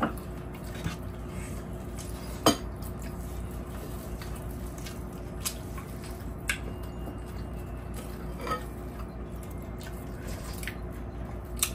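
Metal spoons clinking and scraping against ceramic bowls during a meal: a handful of separate clinks, the loudest about two and a half seconds in, over a faint steady hum.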